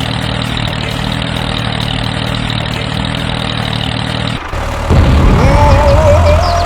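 A vehicle engine running steadily. About four and a half seconds in it cuts off abruptly, and a louder low rumble with a wavering whine follows.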